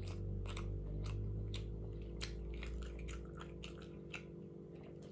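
A person chewing crunchy food close to the microphone, a quick irregular series of short crunches and smacks.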